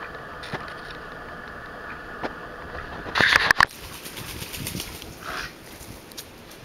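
A steady mechanical hum that stops about three seconds in, right after a loud, brief rustling burst; then a single short duck call about five seconds in, with faint scuffles.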